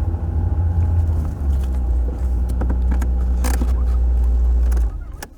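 A motor vehicle's low, steady engine rumble that drops in pitch about a second and a half in and cuts off near the end, with scattered clicks over it.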